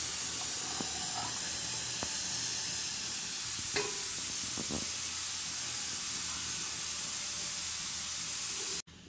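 Steady hiss of a pot of mango fish sothi (coconut-milk fish curry) heating on the stove, just after the thin second coconut milk is poured in, with a few faint clicks. The hiss cuts off suddenly near the end.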